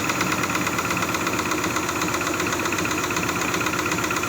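Suzuki F5A three-cylinder engine running steadily with a rapid knocking, the sign of a defective camshaft.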